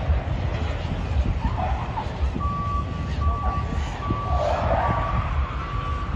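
Drift car sliding sideways under power, a steady low rumble with its tyres screeching in uneven surges. From about two and a half seconds in, a vehicle's reversing beeper sounds repeatedly, roughly once every 0.8 seconds.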